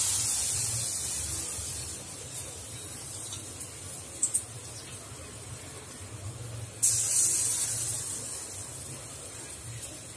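Batter-coated prawns sizzling in hot oil in a steel pan: a loud hiss that fades over about two seconds, then surges again about seven seconds in as another piece goes into the oil and dies down once more. A few small clicks come in between.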